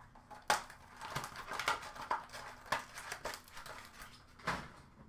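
Light clicks, taps and rustling of trading cards and packaging being handled, with a few sharper clicks, the loudest about half a second in and near the end.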